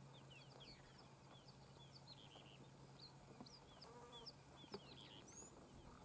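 Helmeted guineafowl flock giving faint, short, high chirping calls, several a second, with a softer lower call about four seconds in. A low steady hum runs underneath.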